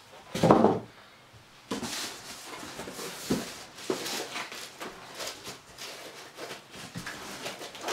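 Cardboard boxes scraping and rustling with irregular small knocks as a boxed studio monitor is slid up out of its outer carton, with a louder thump about half a second in.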